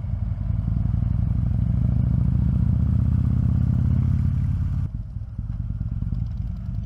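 Harley-Davidson V-twin motorcycle engine running as the bike rides along. About five seconds in the note drops suddenly and gets quieter as the throttle is eased off.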